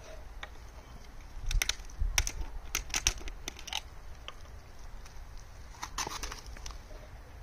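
Plastic screw caps being twisted off bottles and set down on a wooden stool, with a run of sharp clicks and taps about a second and a half to four seconds in and another short cluster about six seconds in.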